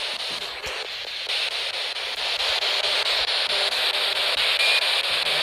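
Steady hissing static that gets a little louder just over a second in.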